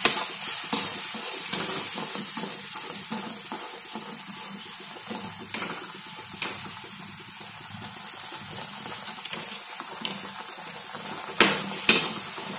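Chopped onions sizzling in hot oil in a kadhai as they are fried toward browning, stirred with a metal slotted spatula that scrapes and knocks against the pan. The sizzle runs steadily, with scattered clicks of the spatula and two louder knocks near the end.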